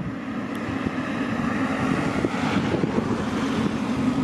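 Wind buffeting the microphone over the distant, steady whine of a taxiing Boeing 777-300's jet engines. The whine swells slightly in the middle.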